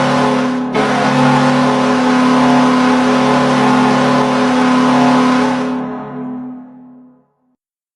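NHL arena goal horn blowing one long, steady, low blast over crowd noise, with a brief break under a second in. It fades out over the last couple of seconds and then cuts to silence.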